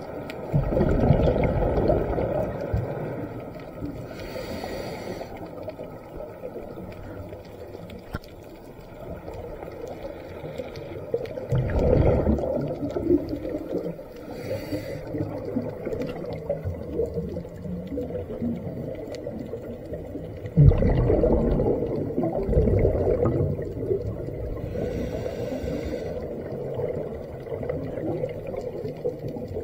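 A scuba diver breathing through a regulator underwater in a slow, even cycle, about every ten seconds: each exhalation is a loud rush of bubbles, and each inhalation is a quieter hiss between them.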